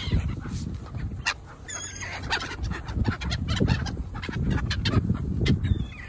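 Black-headed gulls calling as they wheel close overhead, with short harsh cries and a falling call near the end, over a low rumble of wind on the microphone.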